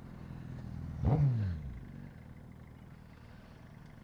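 A motorcycle passing close by about a second in, its engine note dropping in pitch as it goes past, over the steady hum of an idling motorcycle engine.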